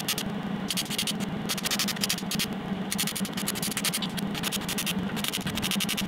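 MIG welder arc crackling and sputtering as exhaust pipe joints are welded under the car, in short runs with brief pauses between them, over a steady low hum.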